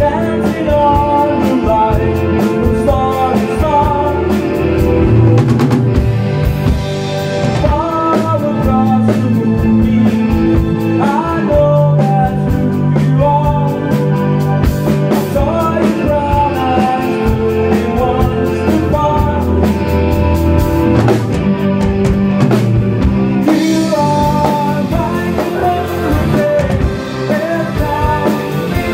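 Live rock band playing: drum kit, bass guitar and electric guitars, with a male singer singing into a microphone.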